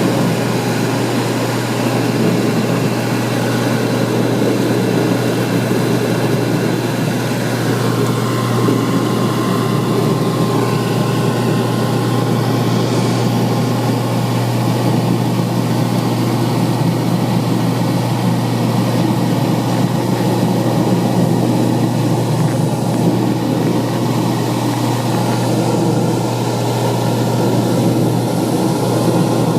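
Whirlpool DU810SWPU3 dishwasher running: a steady electric-motor hum with a constant noisy wash underneath, unchanging throughout.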